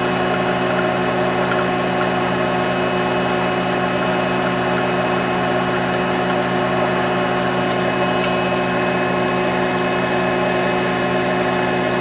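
AC TIG welding arc on aluminium, buzzing steadily with an even, unchanging tone.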